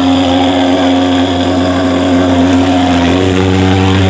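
Mosquito fogging machine running with a loud, steady engine drone; its pitch shifts slightly about three seconds in.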